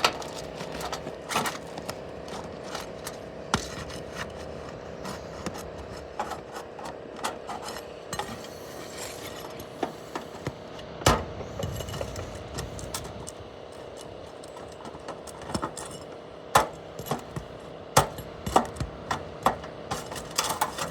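Footsteps and scuffs on an asphalt shingle roof, with scattered knocks and scrapes. The strongest knocks come about halfway through and in a cluster near the end. A faint steady hum runs underneath.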